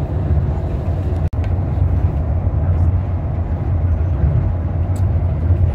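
Tokyo Monorail car running along its elevated beam on rubber tyres, a steady low rumble heard from inside the car. The sound drops out for an instant about a second in.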